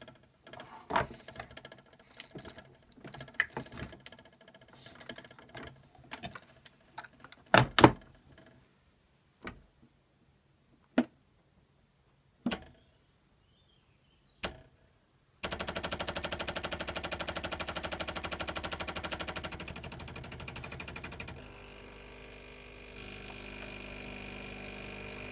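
Clicks and knocks as the Bosch Tassimo coffee machine's pod holder is handled and closed, then about fifteen seconds in the machine's pump starts with a rapid, steady pulsing as it brews the milk pod. The pulsing drops in level a few seconds later and shifts again near the end as the brew goes on.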